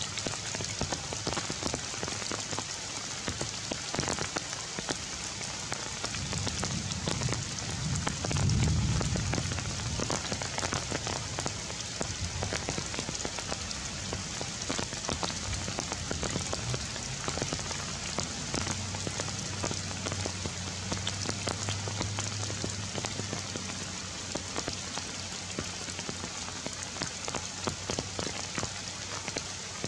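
Steady rain falling on leaves, a dense hiss full of individual drop patters. A low rumble swells and fades about eight seconds in, the loudest moment.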